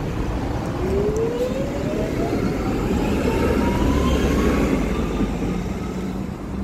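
Electric tram pulling away from the stop close by, its traction motors giving a whine that rises steadily in pitch as it gains speed, over the rumble of its wheels on the rails.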